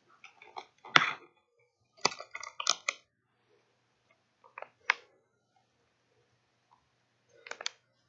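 Plastic medical supplies and their packaging being handled and set down on a countertop: a sharp click about a second in, a cluster of crinkles and clicks between two and three seconds in, and a few more clicks later.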